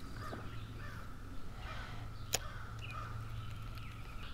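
Birds calling in the background, irregular short calls, over a steady low hum, with one sharp click about two and a half seconds in.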